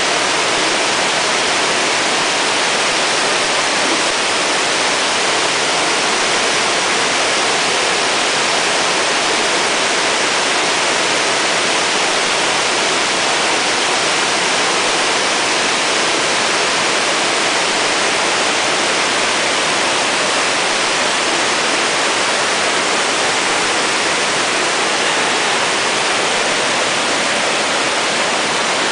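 Steady rushing of fast-flowing creek water: an even, unbroken hiss with no pauses or changes.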